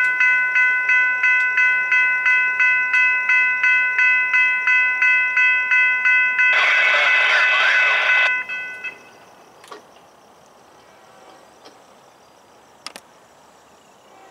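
Railroad crossing's electronic warning bell dinging rapidly and evenly, about two and a half strikes a second. A louder rushing noise joins it for about two seconds. Then the bell stops about eight and a half seconds in, once the gates are down, leaving a faint background with a couple of small clicks.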